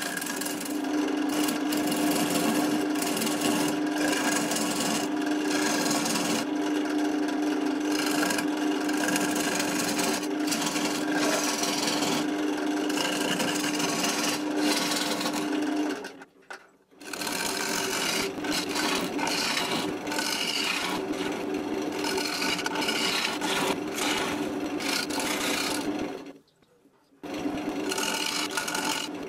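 A wood lathe spinning an oak blank while a turning gouge cuts into it, giving a continuous rough scraping hiss of shavings being peeled off. A steady low tone runs under the cutting for the first half. The sound cuts off briefly twice, about sixteen and twenty-seven seconds in.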